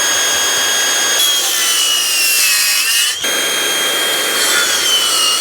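Power saw cutting a notch in a wooden framing timber, its motor whining steadily over the cutting noise. The pitch sags as the blade bites, it stops for a moment about three seconds in, then runs again.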